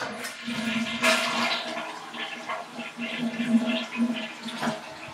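Toilet flushing: a rush of water that surges about a second in and carries on with a steady hum under it.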